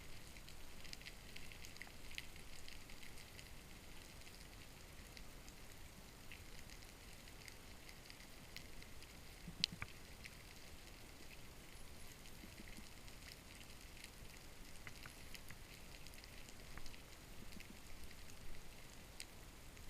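Underwater crackle of countless tiny clicks, with one sharper, louder click near the middle. A few faint low knocks sound under it, the drumming of brown meagre.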